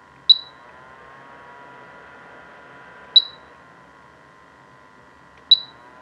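Compact dehumidifier's fan running with a steady hum while its control panel gives three short, high beeps a few seconds apart as its buttons are pressed. The hum rises slightly in pitch after the first beep and drops back after the second, as the unit switches between its standard and sleep fan speeds.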